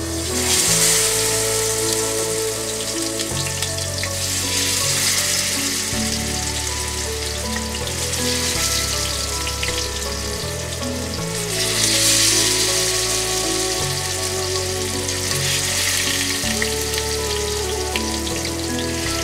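Marinated kingfish slices sizzling as they fry in hot oil in a wide pan. The sizzle starts loud as the first slice goes in and swells again about halfway through. Soft background music plays underneath.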